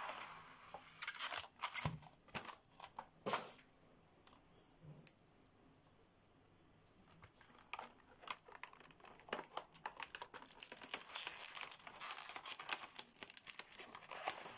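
Clear plastic packaging crinkling and crackling as a nail art gel set's blister tray is handled and slid out of its cardboard box, with one sharp snap about three seconds in. The crinkling stops for a few seconds in the middle, then picks up again.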